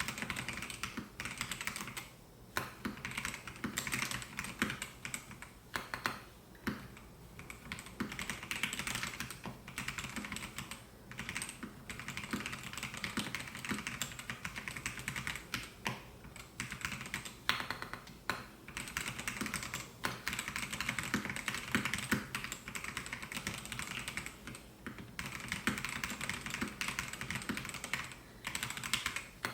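Typing on a Melgeek Mojo68 mechanical keyboard with white Pro switches: a steady run of keystrokes, with a few brief pauses.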